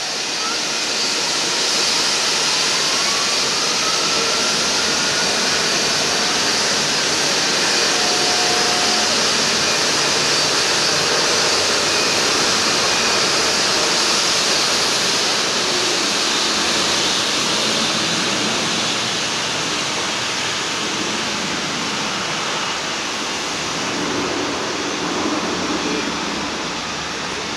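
Jet engines of a Boeing 757-300 running as it taxis and rolls for departure: a loud, steady rushing noise with a faint high whine that rises over the first few seconds.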